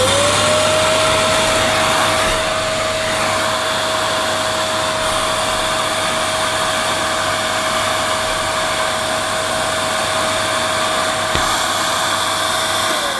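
Dyson DC11 canister vacuum cleaner switched on, its motor quickly rising to a steady high whine over a rush of airflow, then switched off near the end, the whine falling as it winds down. The hose is only held against a turbine floor head that doesn't fit it, so it is losing a lot of suction.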